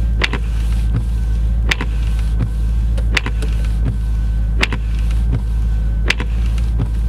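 Pontiac G8 idling steadily, with a regular tick-tock over it: sharp ticks about every three quarters of a second, alternating loud and soft.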